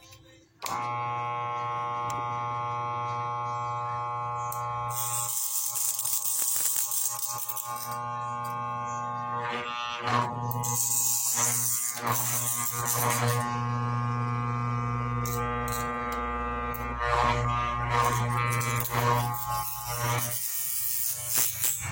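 Steady electrical hum of an armature tester (growler) with the angle grinder's armature on it, starting about a second in, with repeated stretches of buzzing rattle as a steel strip chatters against the armature. The strip sticking and buzzing is the sign of a shorted armature winding.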